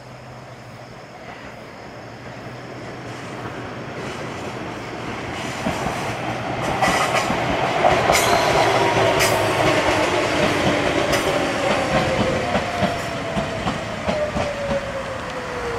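Ichibata Electric Railway 3000 series electric train approaching and passing, growing louder over the first half. Sharp clicks come from the wheels, and a whine falls steadily in pitch through the second half.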